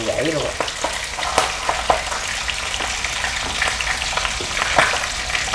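Whole catfish deep-frying in hot oil in a pan: a steady sizzle with scattered crackling pops of spattering oil.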